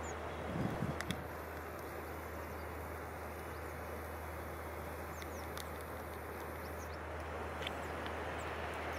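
Steady outdoor background noise with a low hum, a few faint short high chirps and a couple of soft thumps in the first second. From about a second in until about seven seconds, a faint high whine from the compact camera's zoom motor as the lens zooms out.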